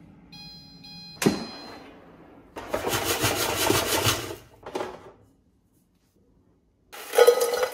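Philips Airfryer XXL giving its shake-reminder beep, then a sharp clack as the basket drawer is pulled out. Frozen fries rattle in the metal basket for about two seconds as it is shaken. After a brief cut to silence, there is more clatter near the end.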